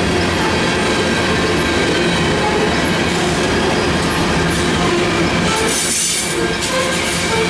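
Freight train cars rolling past on steel rails: a steady loud rumble and clatter of wheels, with a few brief high wheel squeals, the longest about six seconds in.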